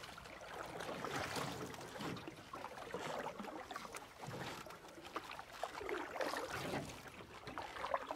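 Rushing outdoor noise with no clear tone, swelling and fading every second or two.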